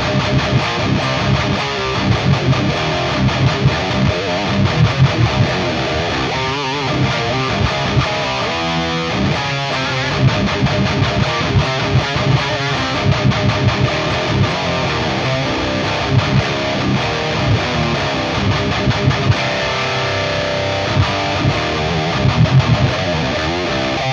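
Solar A1.6 Artist electric guitar played through the lead channel of a Peavey Invective 120-watt three-channel amp head into an Invective 2x12 cabinet with V30 and Creamback speakers: high-gain, distorted heavy metal riffing, steady and rhythmic throughout.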